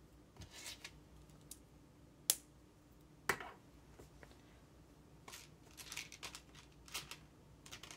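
LEGO bricks being handled and pressed together: scattered small plastic clicks and light rustling of parts, with two sharper clicks about two and three seconds in.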